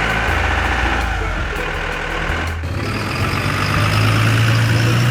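A truck-like engine runs with a steady low hum. About two and a half seconds in, the sound changes abruptly and a slightly rising engine drone takes over.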